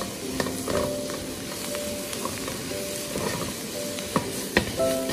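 Smashed green screw peppers sizzling in hot oil in a wok as they are stir-fried over high heat, the spatula scraping through them and knocking sharply on the pan a few times near the end. Soft background music plays underneath.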